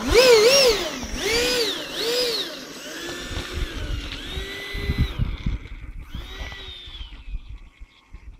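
Electric ducted-fan motor of a T-45 model jet, a motor taken from a HobbyKing Stinger 64 mm EDF and run on a 4S LiPo, whining in throttle blips. Its pitch rises and falls in several quick swells, then settles into longer, lower, steadier runs as the model taxis, with a low rumble underneath.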